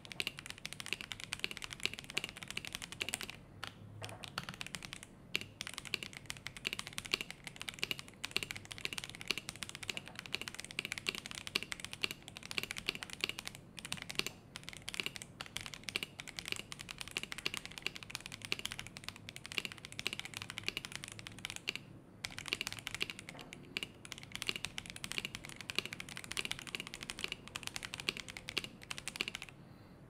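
Fast, continuous typing on a mechanical keyboard fitted with Zuoce Pink Purple White linear switches in stock form (long-pole POM stems, factory lubed), with a few brief pauses. The keystrokes stop about half a second before the end.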